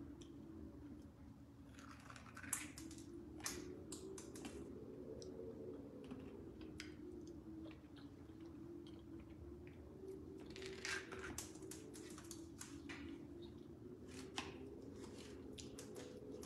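Faint kitchen handling sounds: small clicks, taps and rustles in two bursts, one a couple of seconds in and one past the middle, over a steady low hum that wavers slightly in pitch.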